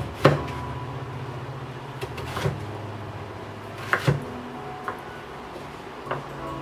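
Chef's knife cutting through a slab of Korean radish and knocking down onto a wooden cutting board: a handful of sharp, irregular knocks, the first the loudest.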